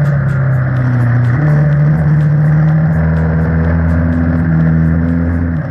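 A motorcycle running at riding speed, mixed with background music that has a steady beat of about four ticks a second and a bass line that steps in pitch.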